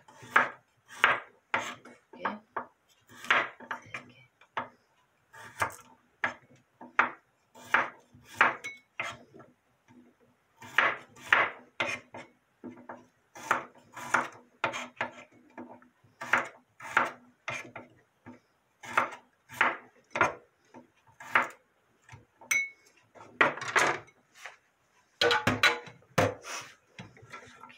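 Small kitchen knife slicing peeled garlic cloves thin on a wooden cutting board: a steady series of short knocks of the blade through the clove onto the wood, about one to two a second, with a quicker cluster of knocks near the end.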